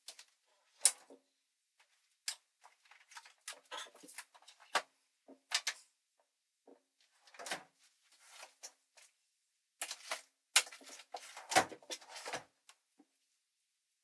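Irregular clicks, knocks and clatter of objects being handled, as in rummaging for a cable, with the sharpest knocks about a second in and again between ten and twelve seconds in.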